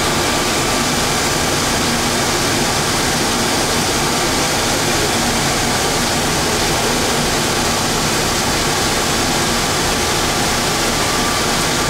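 Steady, unchanging rushing noise inside an automated people-mover train car standing at a station with its doors open, with a faint steady high tone under it near the start and end.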